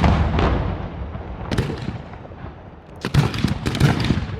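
Fireworks display: a loud bang at the start that fades out, a couple of single cracks, then a quick run of many sharp bangs and crackles from about three seconds in.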